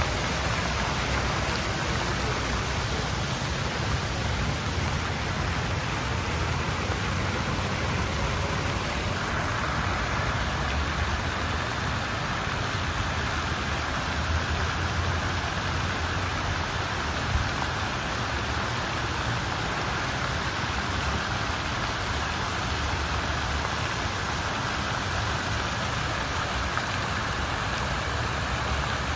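Plaza fountain splashing steadily: water pouring over a row of cascade weirs into a pool and jets falling back onto the water, a continuous rain-like hiss. A steady low rumble runs underneath.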